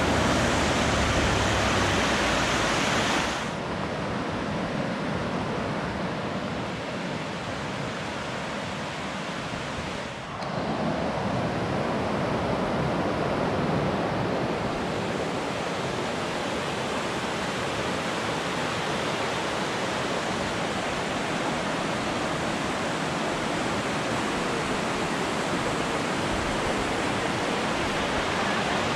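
Rushing mountain creek: water tumbling over rocks in a steady rush. It drops in level abruptly about three seconds in and picks up again around ten seconds in.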